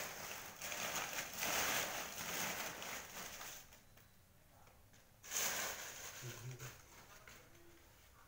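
Dry banana leaves rustling and crackling as they are handled and spread by hand. The rustling runs for the first three seconds or so, stops, and comes again briefly about five seconds in.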